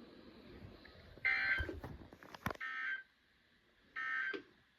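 NOAA Weather Radio end-of-message signal: three short buzzing SAME digital data bursts about a second and a quarter apart, marking the end of the weekly test broadcast.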